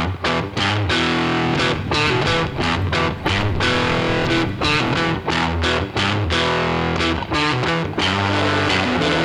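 Background music with distorted electric guitar over a steady beat.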